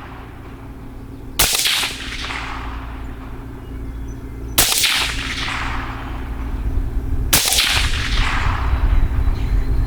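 CMMG Banshee 5.7x28mm pistol firing three single shots about three seconds apart, each followed by a trailing echo, with a steady low hum underneath.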